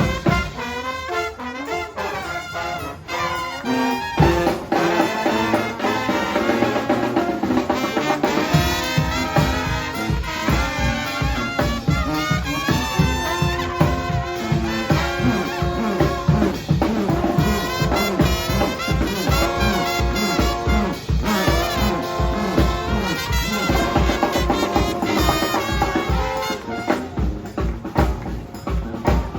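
Brass band playing live: horns playing riffs over held low notes, with a steady drum beat coming in about eight seconds in.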